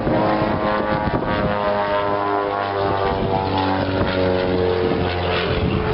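Propeller-driven aerobatic airplane flying by, its piston engine droning steadily, the engine note sinking slightly in pitch partway through.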